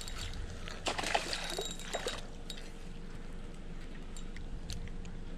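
Short clicks and rustles of a fish being handled, then a small splash as the fish is tossed back into the water.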